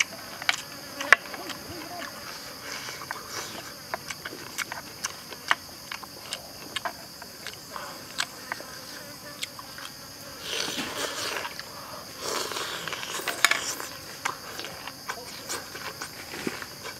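Close-up eating sounds of a man chewing boiled chicken leg: a stream of wet smacking clicks, with two longer, louder noisy stretches about ten and thirteen seconds in. A steady high insect buzz sounds behind.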